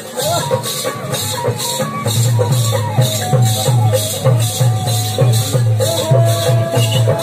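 Live folk music for a peacock dance: a steady rhythmic rattling jangle about twice a second, with a drum beat coming in about two seconds in, under a gliding melodic line.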